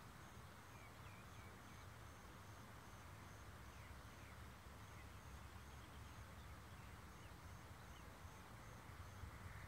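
Near silence: faint outdoor ambience with a steady low rumble, a faint high-pitched chirp repeating about three times a second in runs with short breaks, and a few faint short chirps now and then.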